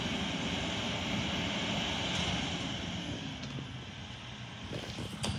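Diesel engine of a garbage truck idling, a steady low rumble heard from across the street. A few light knocks come near the end.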